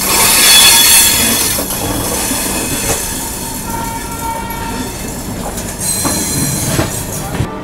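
Train wheels squealing against the rails with several steady high-pitched tones, loudest in the first second and a half and then fading. A few clicks of wheels over rail joints come near the end.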